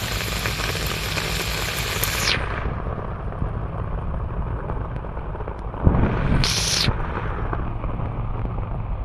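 Water rushing and splashing over rocks in a small stream, heard as a hiss that swells for about two seconds at the start and briefly again near the end, over a steady low rumble of wind buffeting the microphone.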